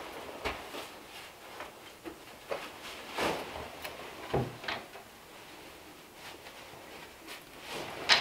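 Someone taking off and hanging up a heavy canvas work jacket: fabric rustling with a few light knocks and a dull thump about halfway through, then a sharp click at the end.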